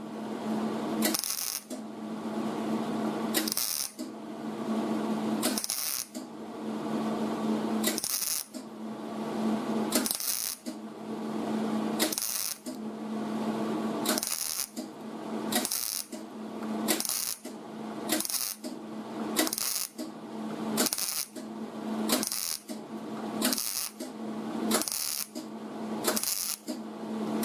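MIG welder laying a row of short spot welds along a butt joint in thin auto body sheet metal, the arc crackling in repeated bursts of a second or two with brief breaks between, coming a little faster toward the end.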